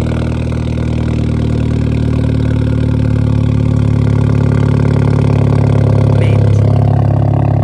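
Straight-piped exhaust of a Hyundai Genesis Coupe idling steadily at the tailpipes, a loud low drone that holds its pitch and swells a little past the middle.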